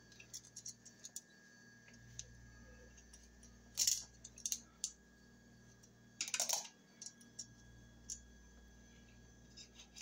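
Faint metallic clicks and rattles of a light switch and its wires being pushed into a wall box by hand, with a screwdriver in hand. Two louder short clatters come about four seconds and six and a half seconds in.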